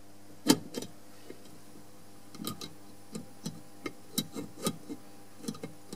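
Irregular light metal clicks and taps, about nine of them, the loudest about half a second in, as a valve stem is worked through the spring retainer and a Briggs & Stratton valve spring compressor into a side-valve engine block.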